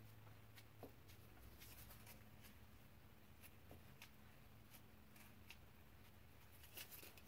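Near silence, with faint scattered light scrapes and ticks from a scrap of cardboard being rubbed over glue-coated cloth on a cover board, pressing it down. A few slightly stronger scrapes come near the end.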